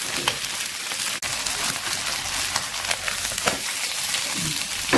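Squid and chive pancake frying in plenty of oil in a nonstick pan: a steady sizzle, with a few light clicks of the spatula or pan.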